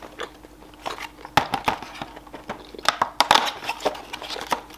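Cardboard advent calendar being handled, its small window flaps pried open with the fingers: scattered light clicks and papery rustles, a few sharper clicks about a second and a half in and again around three seconds.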